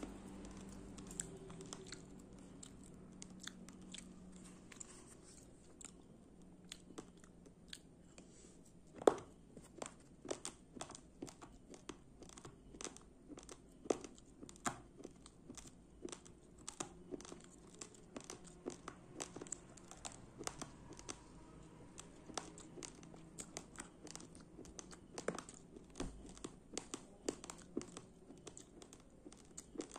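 Uncooked rice grains being chewed, a close, irregular run of small sharp crunches and clicks, with one much louder crunch about nine seconds in.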